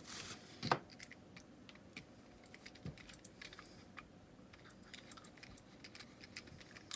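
Faint, scattered clicks and clacks of a 1911A1 pistol's steel parts being handled as it is taken apart, with one sharper click just under a second in.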